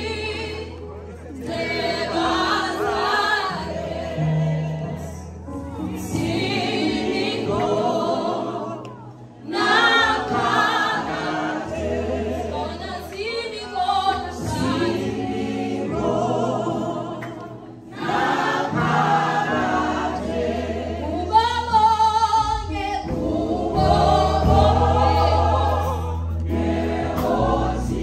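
A choir singing a gospel song in phrases a few seconds long with short breaks between, over a steady low bass accompaniment.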